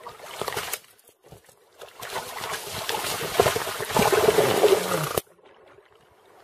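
Water splashing in the shallows as a large hooked fish thrashes at the water's edge and is grabbed by hand: a short splash at the start, then a longer, louder stretch of splashing that cuts off suddenly about five seconds in.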